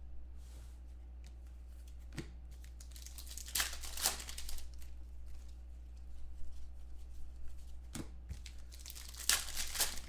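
Plastic trading-card pack wrapper being torn open and crumpled by hand, crinkling in two bouts, about three seconds in and again near the end, over a steady low hum.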